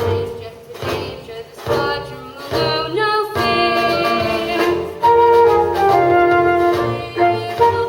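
Music from a stage-musical number: sustained melody notes with some singing over them, growing louder about five seconds in.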